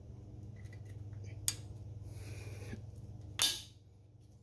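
Steel snap ring being worked by hand into its groove around a wheel bearing in the steering knuckle, with small metal clicks: one sharp click about a second and a half in and a louder metallic clink with a short ring about three and a half seconds in.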